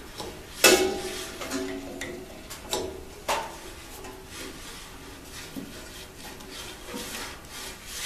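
Handling of a metal V-belt pulley on a bandsaw motor shaft: a few sharp metallic clinks and taps, some ringing briefly after they are struck, with a louder clank at the very end.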